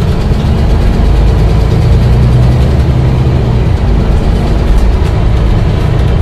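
Volvo B9TL double-decker bus's six-cylinder diesel engine running steadily with a deep rumble.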